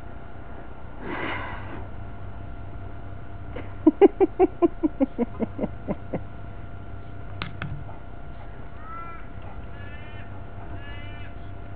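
A crow calls a quick run of about a dozen harsh caws, each quieter than the last, over two or three seconds. A small bird chirps a few times near the end.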